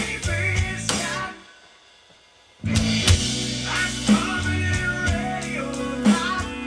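Rock music with a drum kit and guitar. It stops dead about a second and a half in, leaves a gap of just over a second, then comes back in on a hard hit and carries on with a steady beat.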